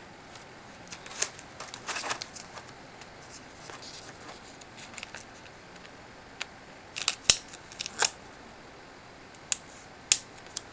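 Small sharp clicks and light plastic handling noises as the laptop's keyboard and keyboard-backlight ribbon cables are pushed into their connectors, irregular and loudest in a cluster past the middle.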